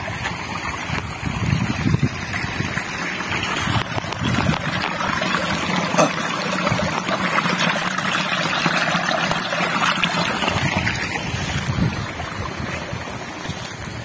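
Irrigation water trickling and running through a small earth channel into a flooded rice paddy, with wind buffeting the microphone, mostly near the start and end.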